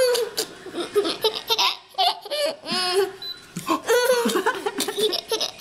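Toddler laughing and squealing in repeated bursts. About three seconds in comes a brief high electronic beep, likely the fridge's control-panel button being pressed.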